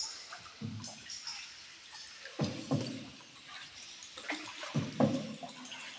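Water sloshing and splashing around a small boat in a cave river, with a few soft splashes a couple of seconds apart.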